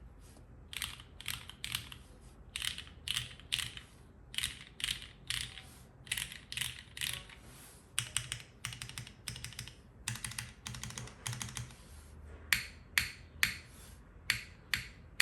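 Typing on a plateless, foamless Neo65 Cu custom mechanical keyboard with modded vintage Cherry MX Black linear switches and rubber keycaps: runs of quick keystroke clicks. In the last few seconds the presses come slower, separate and louder.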